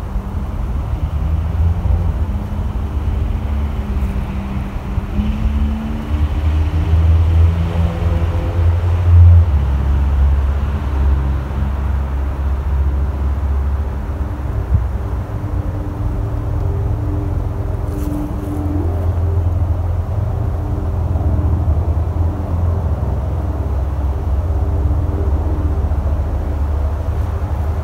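Sikorsky UH-60M Black Hawk twin-turboshaft helicopter flying past: a heavy low rotor drone with tones that shift in pitch as it passes, loudest about eight or nine seconds in.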